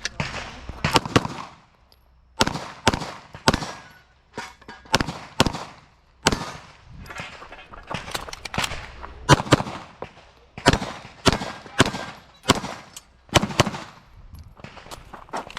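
Pistol shots fired in rapid pairs during a timed IPSC stage run, with short breaks between strings as the shooter moves between positions.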